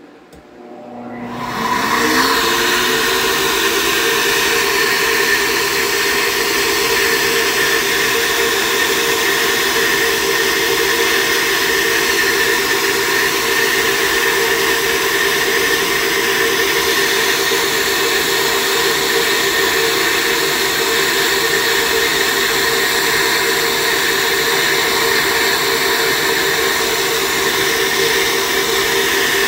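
Cylinder head flowbench starting up about a second in, its motors winding up in pitch over a second or so, then running steadily with a loud rush of air drawn through a ported LS1 cylinder head port during a flow test meant to be at 0.600-inch valve lift, the bench reading about 314 CFM.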